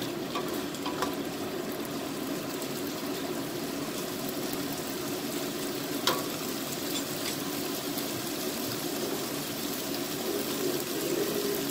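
Sliced onions and red peppers sizzling steadily in a paella pan over a gas burner, with a wooden spoon stirring them and one sharp knock against the pan about six seconds in.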